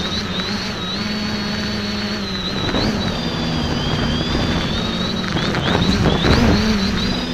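X550AIOP quadcopter's electric motors and propellers whirring up close, heard from the camera on the craft, with their high whine gliding up and down as the throttle shifts. The noise surges louder about six seconds in.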